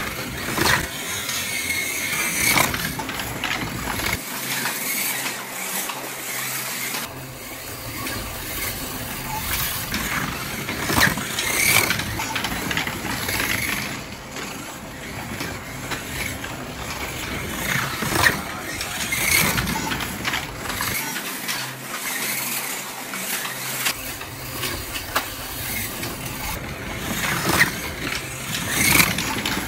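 Two Porsche 917 slot cars racing lap after lap, their small electric motors whining as they come past the microphone again and again, the sound swelling and fading with each pass.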